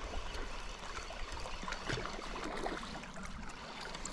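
Small waves lapping and trickling among shoreline rocks: a faint, steady wash with scattered small splashes.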